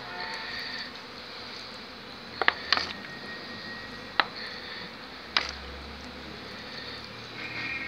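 Honeybees buzzing around an open hive, with a few sharp taps about two and a half, four and five and a half seconds in.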